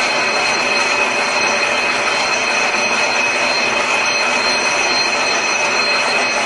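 Automatic barbed-wire making machine running steadily: a dense, even mechanical noise with a steady high whine over it.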